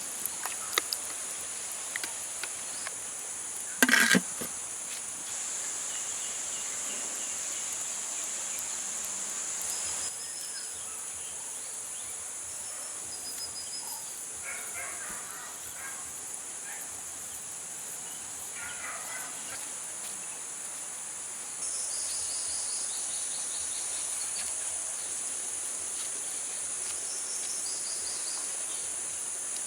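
Insects shrilling steadily in a high band, stronger in two long stretches, with a few short chirps in between. A brief knock about four seconds in is the loudest sound.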